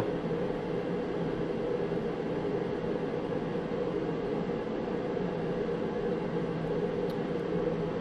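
Propane forced-air heater running: a steady roar from its fan and burner, with a low hum.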